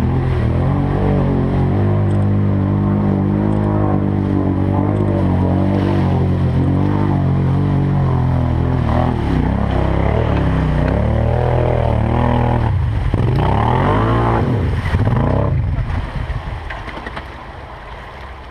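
4x4 ATV engine running under way, its pitch rising and falling with the throttle, then easing off and quieter near the end.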